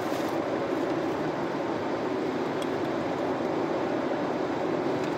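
Steady road and engine noise inside a Volkswagen up! cruising at highway speed, an even rumble of tyres on asphalt and engine with no changes.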